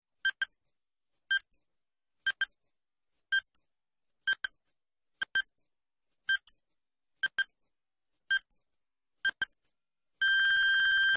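Quiz countdown timer sound effect: short electronic pips about once a second, some of them doubled, then one long steady beep near the end as the time runs out.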